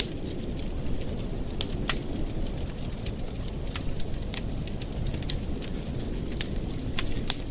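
Campfire burning steadily with a low rumble, and irregular sharp crackles and pops of burning wood, about ten of them, the loudest near the end.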